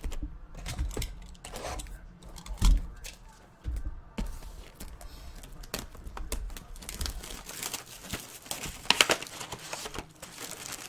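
Plastic wrapping on trading-card packs crinkling and tearing as they are handled and opened, with a single knock near the three-second mark and a denser burst of crinkling near the end.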